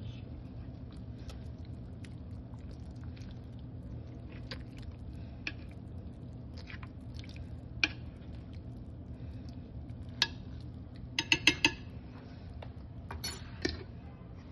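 Kitchen utensils and dishes clinking now and then, with a quick run of several clinks about eleven seconds in, over a steady low hum.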